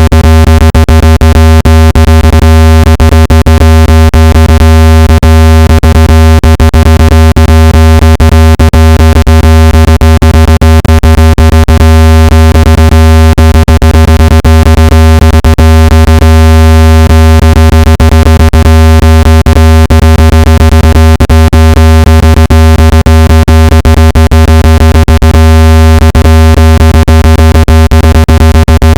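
Speaker-cleaning tone: one loud, steady, low-pitched buzzing tone with many overtones, held without change, meant to vibrate water and dust out of a phone speaker.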